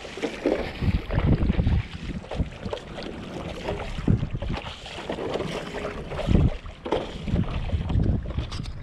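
Gusty wind buffeting the microphone, over the splash of paddle strokes and water slapping against a stand-up paddleboard. It comes in uneven rumbles and splashes with no steady rhythm.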